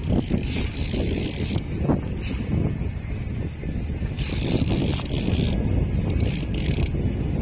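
Fishing reel being wound in, a whirring, ratcheting mechanical sound, over a steady low rumble, with several bursts of hiss lasting about a second each.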